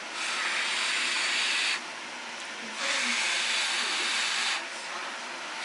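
Two long blows of breath onto hot ramen noodles held up on chopsticks, cooling them before eating.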